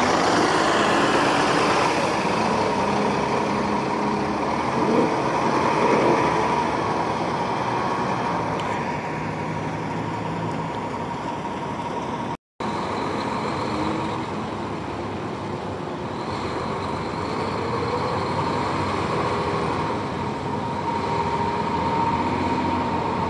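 City buses and road traffic: bus engines running and moving past over a steady traffic hum. The sound drops out for an instant about halfway through.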